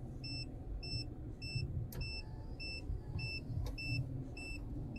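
Proton X50 parking-sensor warning beeping at an even pace, a short high beep about every half second to signal an obstacle close to the car, over a low engine hum in the cabin. Two faint clicks come in the middle.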